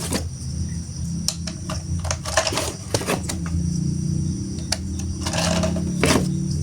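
Irregular plastic clicks and short rattles of toy pieces being handled and fitted together, over a steady low hum.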